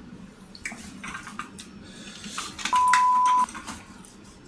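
A single steady electronic beep, one even tone lasting under a second, a little past the middle, amid a few faint clicks and knocks.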